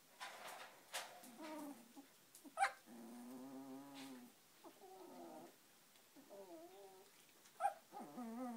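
Young Samoyed puppies, about two and a half weeks old, whining and squeaking: a string of about five short, wavering whines, each around a second long, broken by a couple of brief sharp squeaks.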